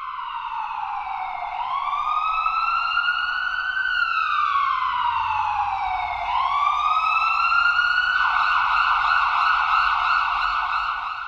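Ambulance siren wailing, its pitch sliding slowly down and up over a few seconds at a time. About eight seconds in it switches to a rapid warble, then cuts off suddenly.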